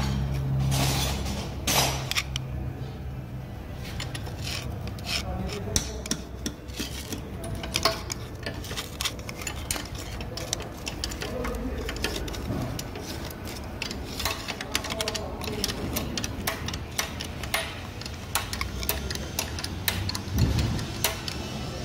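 Screwdriver scraping and picking caked dark sludge out of a cavity in a Scania diesel engine casting: many short scratches and metal clicks, irregular throughout.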